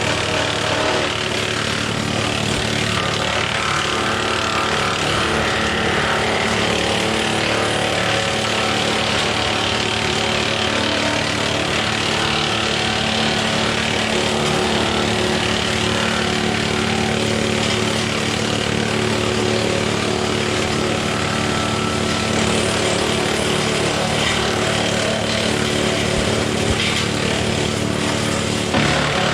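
John Deere 4066R compact tractor's diesel engine running steadily at constant speed, with a dense mechanical noise over it.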